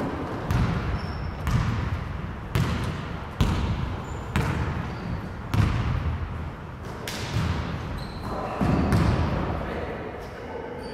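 A series of irregular heavy thuds, about one a second, each trailing off with some ringing.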